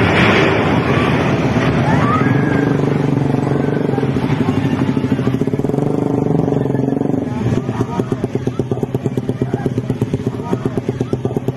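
Vehicle engine noise at a street crash scene. A loud rushing noise at the start gives way to a steady pitched hum, and about seven seconds in an engine runs with a fast, even pulse, with voices faintly under it.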